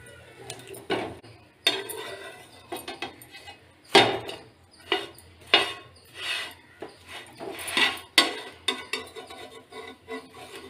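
Metal kitchen utensils knocking, clinking and scraping against pans and plates in an irregular string, with the loudest knocks about four and five and a half seconds in.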